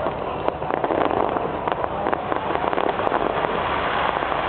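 Fireworks crackling: a dense, continuous run of small pops and snaps over a steady hiss.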